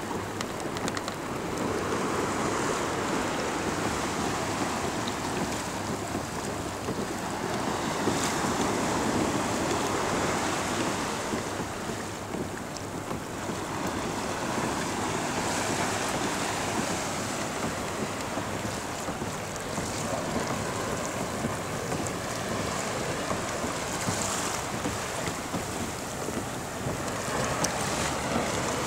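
Wind buffeting the phone's microphone over water washing against a kayak at sea: a steady rushing noise that swells and eases every few seconds, with no motor.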